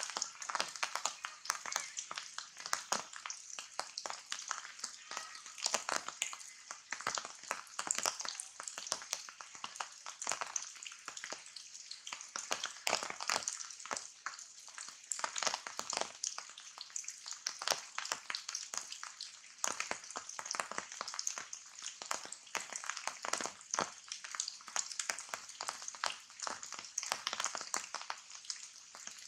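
Rain falling on broad leaves: a dense, irregular spatter of drops striking the foliage, many per second.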